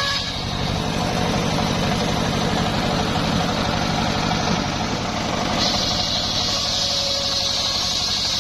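Engine-driven homemade circular sawmill running steadily with a rhythmic low engine rumble; a higher hiss drops away at the start and comes back suddenly about two thirds of the way through, as the blade works through coconut-palm trunk.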